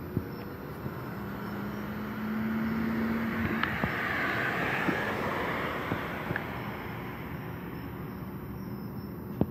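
A car driving past: its engine and tyre noise swell over a few seconds and fade away, with a steady low hum in the first few seconds.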